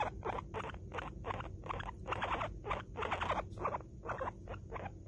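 Guinea pig making a steady series of short, rasping sounds, about three a second.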